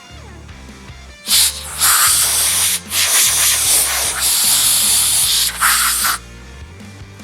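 Compressed air hissing out in several blasts over about five seconds, starting about a second in, with short breaks between them.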